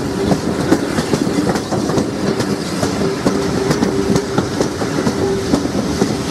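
Steam-hauled passenger train running along the line, its coach wheels clicking and clattering over the rail joints, heard close up from an open carriage window.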